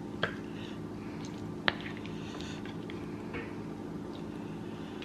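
Serving spoon scooping creamy cauliflower mac and cheese out of a stainless steel skillet onto a plate: soft squishes, with a few light clicks of the spoon against the dishes, the sharpest about a second and a half in. A steady low hum runs underneath.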